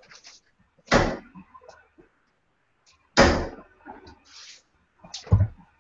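Steel-tip darts thudding into a bristle dartboard: two sharp thuds about two seconds apart, then a lighter knock near the end.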